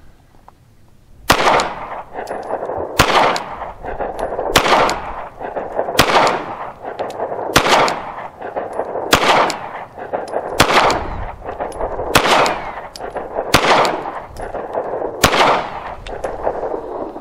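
Ten shots from a Glock 45 9mm pistol firing Federal Syntech polymer-jacketed range ammunition, fired one at a time about a second and a half apart. Each shot has a short echoing tail.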